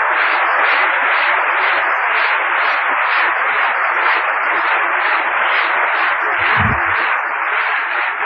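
Audience applauding steadily, with a brief low thump about two-thirds of the way through.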